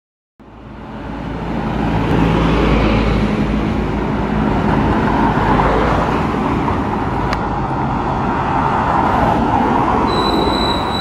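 Articulated diesel bus approaching with its engine running and road noise, fading in at the start. Near the end a high, steady brake squeal starts as the bus slows to pull in.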